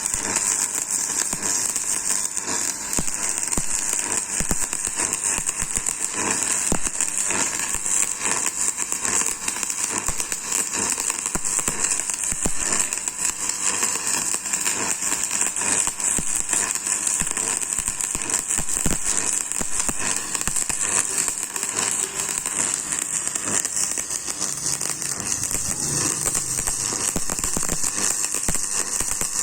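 Electric arc welding: the arc crackling and sizzling steadily as a weld bead is laid.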